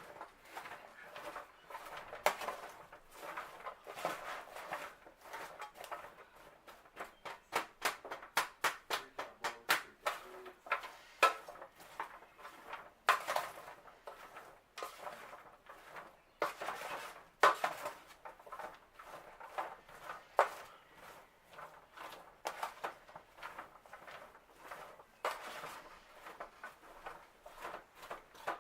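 A utensil scraping and knocking against a pan as sliced peppers and onions are stirred through sausage drippings. There are many short clicks and clanks, coming thickest and loudest in the middle.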